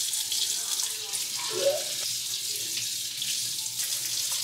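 Kitchen faucet running a steady stream of water into a stainless steel sink, with hands being rinsed under it.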